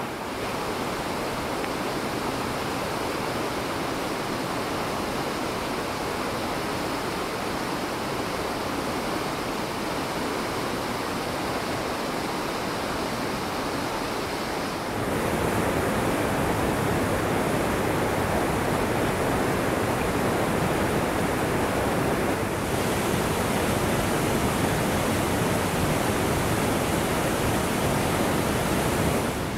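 Rushing white water of rapids in a rocky forest creek, a steady noise. It steps up louder and deeper about halfway through and changes again about three-quarters of the way through.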